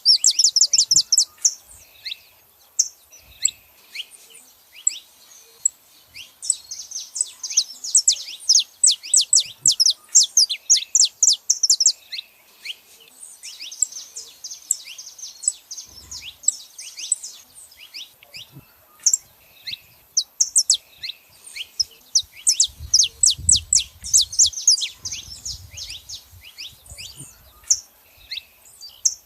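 Saffron finches chirping and singing: rapid strings of high, sharp, downward-sliding notes in bursts with short pauses between them.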